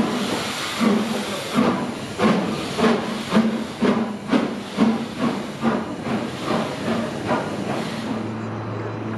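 BR Standard Class 4 steam locomotive 75078 pulling away: its exhaust chuffs come faster and faster, over a constant hiss of steam. Near the end the chuffing fades and a steady low hum is left.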